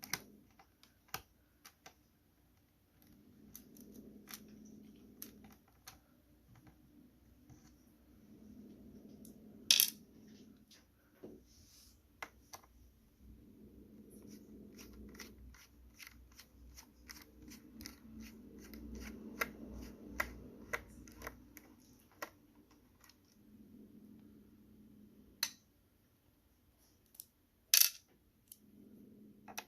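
Small Phillips screws being turned out of a laptop's plastic bottom case with a precision screwdriver: short stretches of soft turning and scraping with fine ticking. Two sharp clicks, about ten seconds in and near the end, are the loudest sounds.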